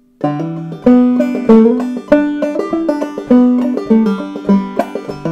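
Open-back banjo played clawhammer style, an old-time tune in G starting up after a brief pause, with strong rhythmic plucked notes that ring and decay.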